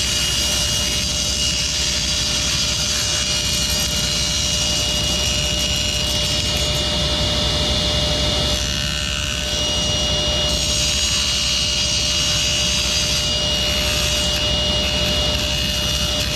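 Table saw running with a steady whine while a half-inch wooden dowel is rolled slowly across the raised, spinning blade, which trims a shallow groove around the dowel's end to form a tenon. The sound dips slightly a little after the middle.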